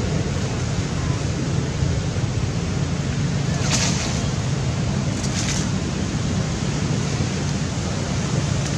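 Steady wind noise rushing on the microphone, with two brief hissy bursts about four and five and a half seconds in.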